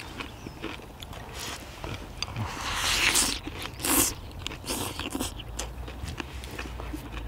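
People chewing and slurping udon noodles and spicy stir-fried chicken, with small clicks throughout and two loud slurps about three and four seconds in.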